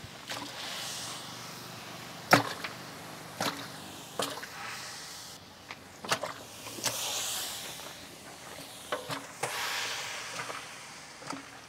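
Whole chickens dropped one after another into a large pot of hot oil with green chillies, each landing with a wet slap and splash: about nine separate hits, the loudest about two seconds in, with short hissing between them.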